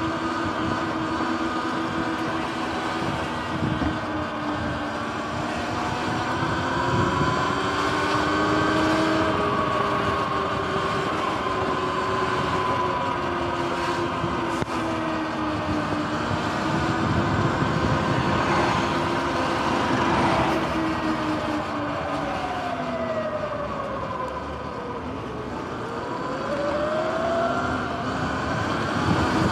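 Sur-Ron electric dirt bike riding along: the electric motor and drivetrain whine, rising and falling in pitch with speed, over wind and tyre noise. The pitch drops as the bike slows a little after two-thirds of the way through, then climbs again as it speeds back up near the end.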